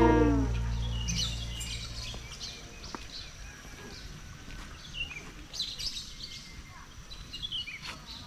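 Background music fading out in the first second or two, then small birds chirping in scattered short calls over soft outdoor ambience.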